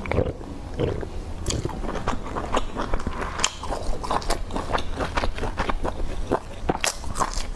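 Close-miked eating sounds: chewing and wet mouth clicks and smacks, many short ones a second.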